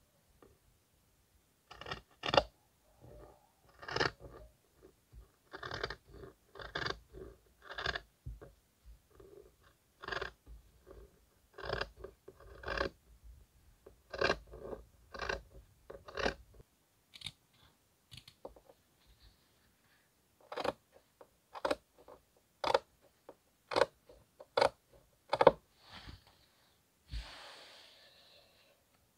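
Scissors cutting through cloth: a long, irregular series of sharp snips, roughly one or two a second, with a pause partway through. Near the end comes a second of soft fabric rustling.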